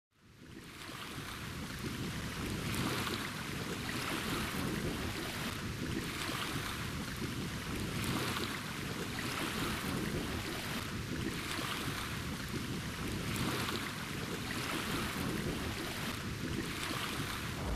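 Lake water lapping and washing against shore rocks in soft swells about every second and a half, over a low wind rumble. It fades in at the start.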